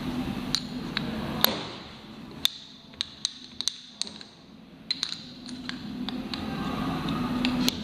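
A dozen or so sharp metallic taps and clinks, irregularly spaced, from tools working on the engine block while the pistons are being fitted.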